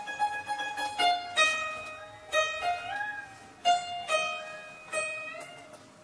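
Chaozhou zheng (Chinese plucked zither) playing a slow melody: single plucked notes ring and fade, and several slide upward in pitch as the left hand presses the string behind its bridge.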